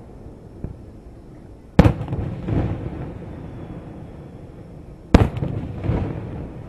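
Two aerial firework shells bursting over the water, two sharp loud bangs a little over three seconds apart. Each bang is followed by a weaker boom less than a second later.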